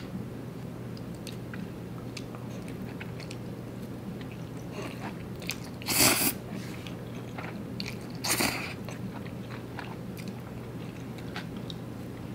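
Person slurping spicy Korean instant noodles off chopsticks: two short, loud slurps about six and eight seconds in, with soft chewing and mouth clicks between them.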